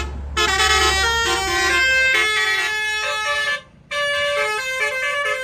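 A tour bus's Basuri multi-tone 'telolet' air horn playing a quick melody of stepped notes. It stops for a moment a little past halfway, then starts another run of notes.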